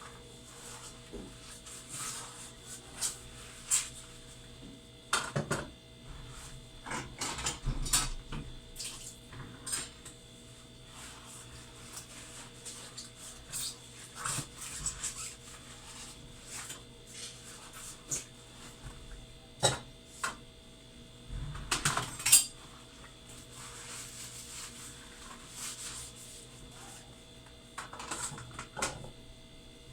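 Dishes and containers clinking and knocking irregularly as they are handled, with the loudest knocks about five and twenty-two seconds in, over a faint steady hum.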